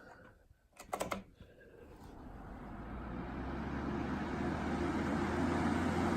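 A quick cluster of clicks about a second in, then a 2003 Holmes Blizzard four-speed floor fan (HAPF 322) starting on its low setting. Its motor hum and the rush of air build steadily as the blades spin up.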